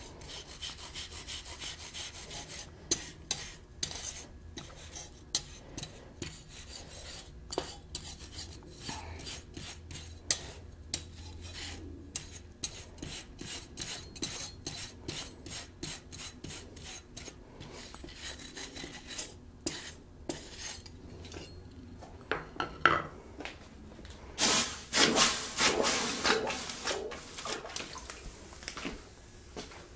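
Brass wire brush scraping over a dull-red-hot steel ornament on an anvil in many short strokes, rubbing brass onto the wings for a gold colour. Near the end there is a louder rush of noise lasting about two seconds.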